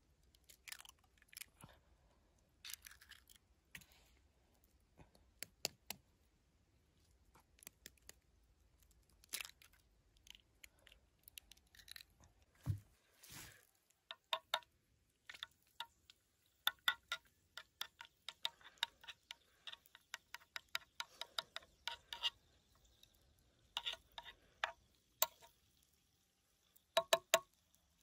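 Eggs frying in hot oil in a shallow pan over embers, crackling and spitting in sharp pops that come thickest in the second half as they are spooned over. A single dull knock sounds a little before the middle.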